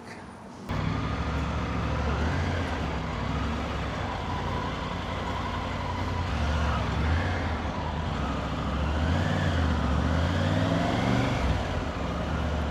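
Triumph Tiger 900's three-cylinder engine running at low speed, its pitch rising and falling with the throttle. It cuts in suddenly about a second in.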